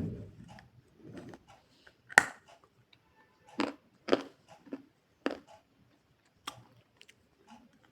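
Hard chunks of white edible clay cracking as they are bitten and crunched between the teeth: a run of sharp, separate cracks about a second apart. The clay is hard and breaks only with effort.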